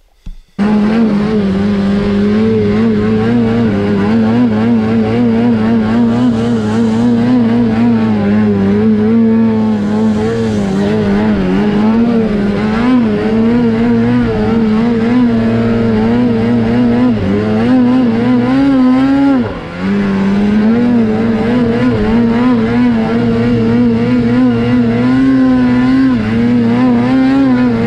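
Snowmobile engine running hard at high, wavering revs, heard from on board the sled. About two-thirds of the way through the revs drop briefly as the throttle eases, then climb again.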